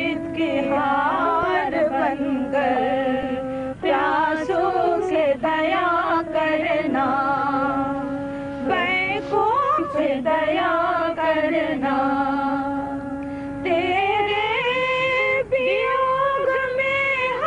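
Devotional chant sung with musical accompaniment: a voice moving through gliding phrases over long, steadily held notes.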